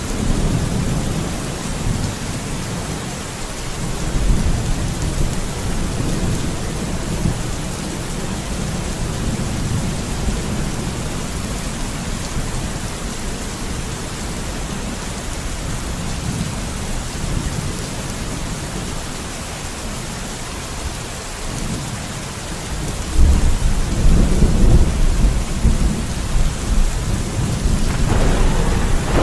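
Steady rain with continuous rolling thunder rumbling low underneath; the thunder swells louder about three quarters of the way through, and a sharper, brighter crack starts near the end.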